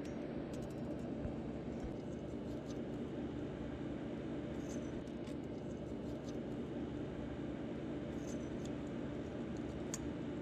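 Faint light ticks and scrapes of a steel feeler gauge blade being worked into the joint between an FE Ford intake manifold, its gasket and the cylinder head, probing for gaps where the gasket could leak. A steady low hum runs underneath.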